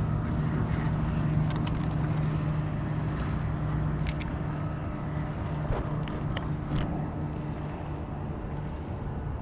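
Steady low motor hum aboard a bass boat, with a few light clicks scattered through it. The hum weakens and drops lower about six seconds in.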